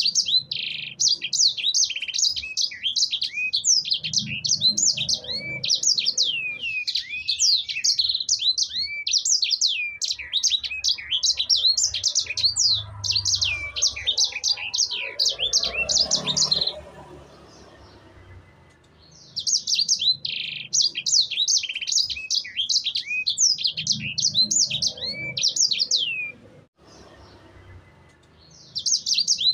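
Sanger songbird singing a rapid, continuous song of high chirps and trills, used as a master song to lure caged birds into singing. A long bout of about 17 seconds, a short pause, a second bout of about 7 seconds, and the song starts again near the end.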